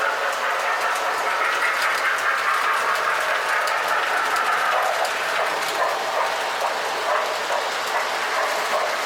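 O gauge toy trains running on the layout: a steady rumble of wheels and motors, with light clicks as the wheels pass over the rail joints.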